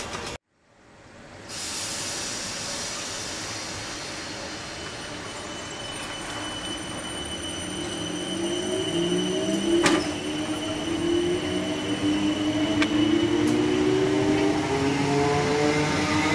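South Western Railway electric multiple unit accelerating, its traction motors whining in several tones that climb steadily in pitch over wheel-on-rail noise, with a few sharp clicks. The sound drops out briefly about half a second in and fades back.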